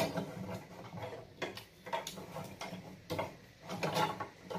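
A cut-off saw's vise screw being cranked tight by hand on a steel square pipe, giving irregular light metal clicks and rattles. The saw motor is not running.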